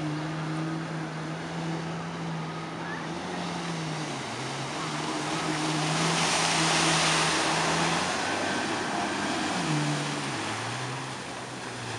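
Jet ski engine running at a steady pitch, easing off and dropping in pitch twice, about four seconds in and again near the end, as the machine carves tight turns. Its hull sprays water in a loud rushing swell from about six to eight seconds in.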